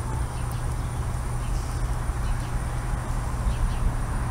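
Diesel locomotive engine running with a steady low drone as the train approaches, with a few faint bird chirps above it.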